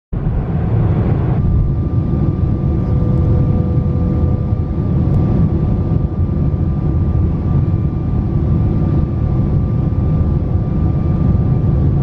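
Airliner cabin noise on the descent toward landing: the steady, loud rumble of the jet engines and rushing air, with a faint steady whine that comes in about a second and a half in.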